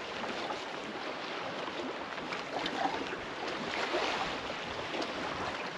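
Sea water lapping and sloshing against the hull of a small fishing boat drifting with no engine running: a steady, even wash.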